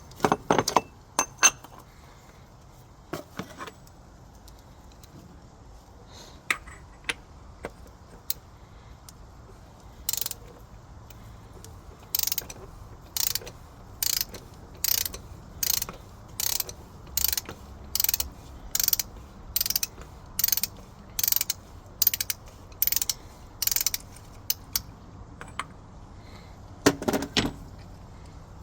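Ratchet wrench clicking as it is swung back and forth, turning the oil filter housing cap off the engine. A few scattered clicks and clanks at first, then a long run of regular ratcheting strokes about two a second through the middle, and a couple more clanks near the end.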